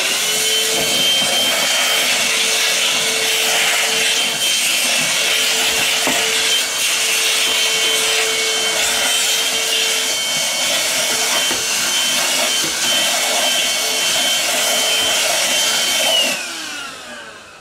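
HoLife HM036BW cordless handheld vacuum switching on and running steadily with a high whine, sucking up spaghetti, juice and water. About a second before the end it switches off and winds down, its whine falling in pitch.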